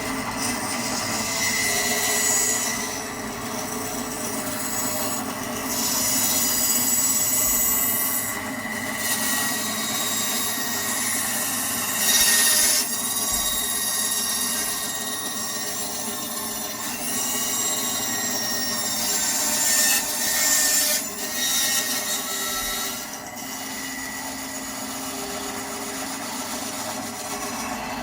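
Axminster Craft AC1950B bandsaw running with its freshly changed blade: a steady motor and blade hum, broken by several stretches of louder, hissing sawing noise as wood is fed through.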